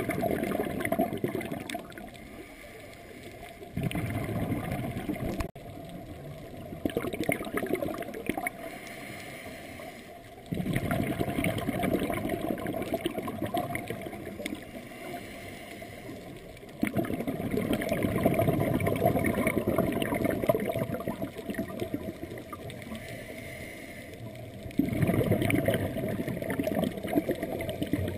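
Scuba diver's regulator breathing heard underwater through the camera housing: exhaled bubbles gurgling and rushing in loud stretches, with quieter gaps between breaths.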